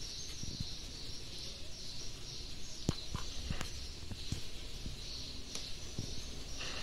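Soft rustling of a tissue rubbing a young kitten's fur, with scattered light clicks and taps from handling.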